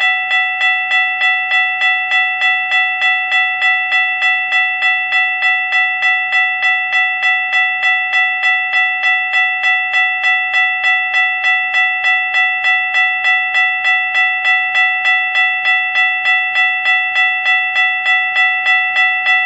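Railroad crossing bell ringing steadily, about two and a half strikes a second, while the crossing signals are active with the gate down.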